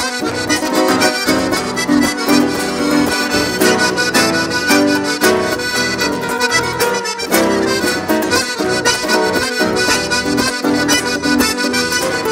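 Instrumental passage of a Gaúcho native song, played on a piano accordion with a nylon-string classical guitar.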